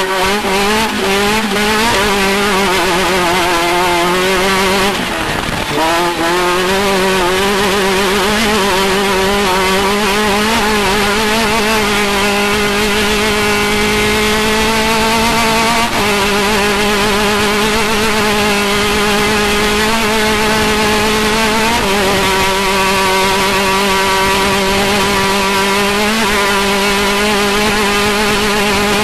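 Off-road race car's engine running hard at high, nearly steady revs, its pitch dipping and shifting briefly a few times.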